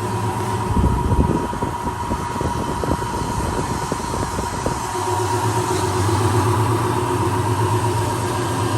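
Kalamazoo 14-inch abrasive chop saw running on its 5 HP Baldor three-phase AC motor, a steady hum with a loud low thump about a second in and a rougher, uneven stretch that settles back to the even hum about five seconds in.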